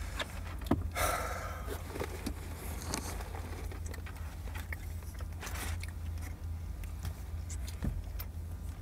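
Takeout food wrappers rustling and small eating and handling sounds inside a car, over a steady low hum; the loudest rustle comes about a second in, another near the middle.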